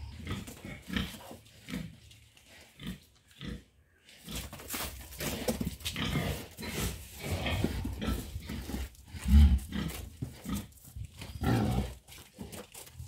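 Pigs grunting, with only a few short grunts at first, then a busy run of short low grunts about four seconds in, and one louder grunt a little after nine seconds.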